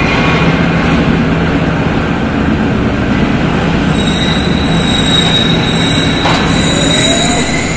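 Passenger train coaches rolling along the platform with a steady low rumble. From about four seconds in, a high steady wheel squeal joins it.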